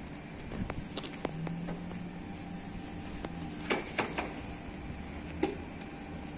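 Alstom Citadis Dualis tram-train running slowly into the platform, giving a low steady hum. A few sharp clicks and knocks come about halfway through.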